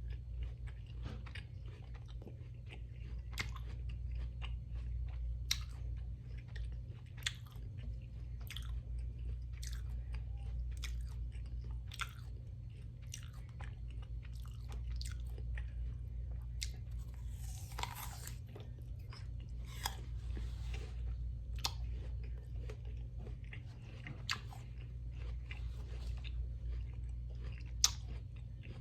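A person chewing and crunching food close to the microphone, with irregular crisp clicks of biting and chewing over a steady low hum. Two short hissy noises come near the middle.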